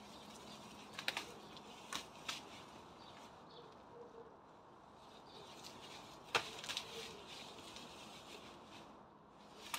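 Leafy weed stems and foliage rustling as they are pulled up by hand, with sharp snaps of stems breaking: a few about a second and two seconds in, and the loudest a little past the middle.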